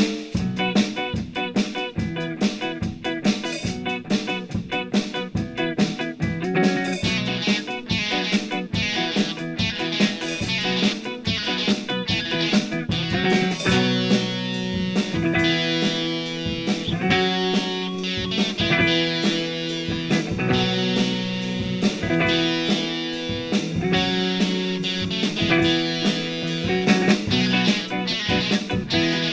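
Background music: electric guitar playing a rhythmic, blues-style part with a steady beat.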